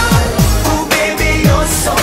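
Pop song: a woman singing over a steady beat of deep kick drums that drop in pitch.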